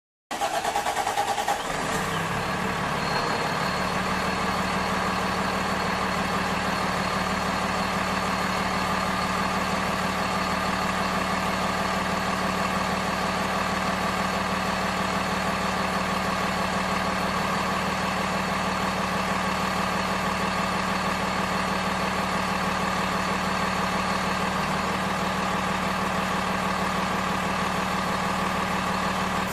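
Truck engine idling steadily after a short unsettled start in the first two seconds.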